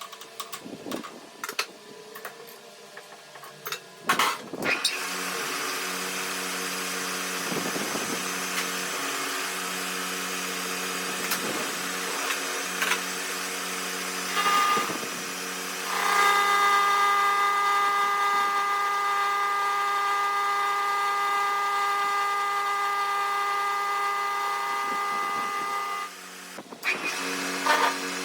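A few knocks and clanks, then an electric metalworking machine starts about four seconds in and runs with a steady hum. About halfway through, a steady high ringing tone of metal being cut joins it, stopping a couple of seconds before the end.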